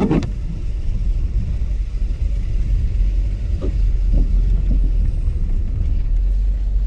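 A vehicle driving through mud, its engine and tyres making a steady low rumble, with a sharp thump right at the start.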